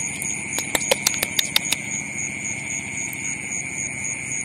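Night insects in a flooded rice paddy keep up a steady high-pitched chorus of shrill, slightly pulsing tones. About half a second in comes a quick run of around ten sharp clicks lasting a little over a second.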